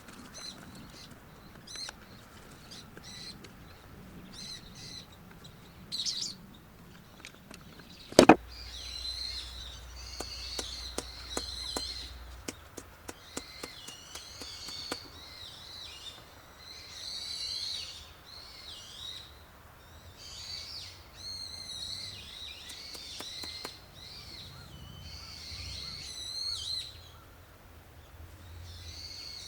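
Birds chirping and singing throughout, with one sharp, loud click about eight seconds in and a run of lighter clicks after it.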